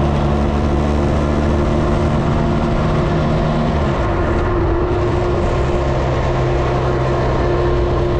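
Motorcycle engine running at steady revs under wind noise, as heard while riding. One tone in the engine sound drops in pitch about four seconds in.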